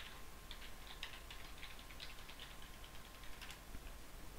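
Computer keyboard typing: a run of quick, faint key clicks that stops about three and a half seconds in, as a password is keyed in at a terminal prompt.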